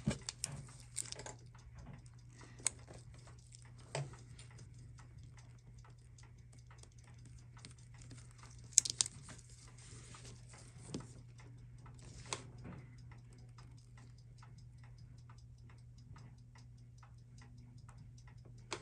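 A timepiece ticking rapidly and evenly, with a few sharper clicks of small metal parts and tweezers on the bench, the loudest about nine seconds in. A low steady hum runs underneath.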